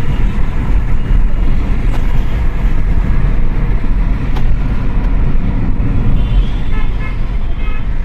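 Steady low road and engine rumble inside a Kia Seltos cabin cruising on a highway. A few faint short tones sound about six seconds in.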